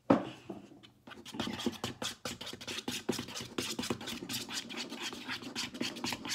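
A slime mixture of glue, lotion and shaving cream being stirred and scraped in a bowl: a fast, continuous run of scraping and sticky clicking that starts about a second in, after a single sharp knock at the very start.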